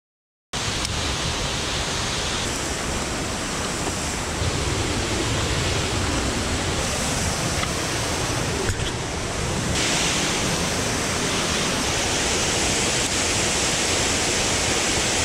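Steady rushing outdoor noise with an uneven low rumble, starting abruptly about half a second in, with one faint click near nine seconds.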